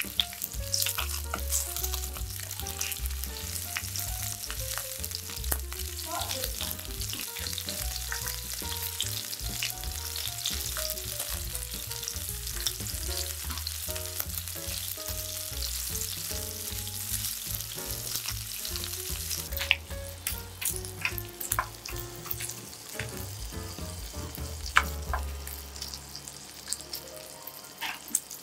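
Salmon cubes sizzling and crackling in hot olive oil in a nonstick frying pan on medium heat, with tongs tapping and scraping the pan as the pieces are turned. The sizzle eases about two-thirds of the way through, leaving sharper clicks and knocks of the utensil against the pan.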